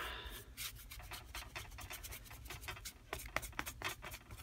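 Paintbrush scrubbing and dabbing craft paint onto a textured book page: a run of faint, quick, scratchy strokes that come thicker in the second half.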